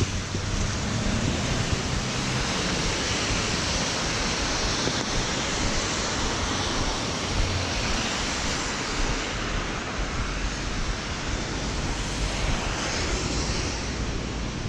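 Steady noise of rain falling on an umbrella held just overhead, mixed with traffic on the wet road, with a low rumble of passing vehicles near the start.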